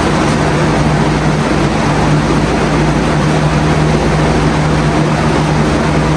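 Steady, loud machine drone with a constant low hum, running unchanged throughout.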